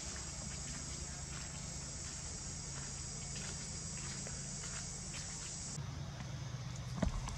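Steady high insect drone with a low hum beneath and scattered light ticks. The drone drops away about six seconds in, and there is a short knock near the end.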